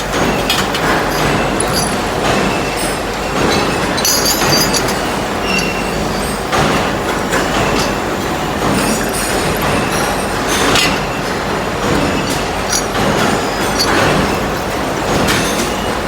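Four-spindle drilling machine running as it drills scaffolding components: a loud, steady mechanical din with scattered sharp clicks and metallic clinks.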